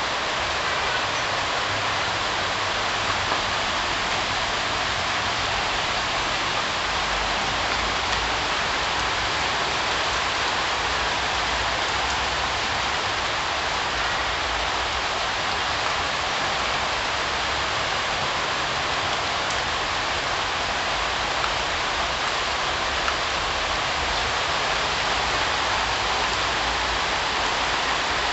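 Steady rainfall, a continuous even hiss of rain pouring down and pattering on surfaces, with a few faint drop ticks.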